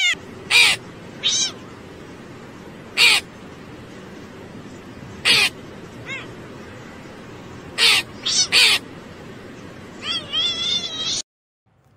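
Domestic cat meowing at a crow in short, sharp calls, about eight spread out, then a longer wavering run of calls near the end, over a steady background hiss. The sound cuts off suddenly just before the end.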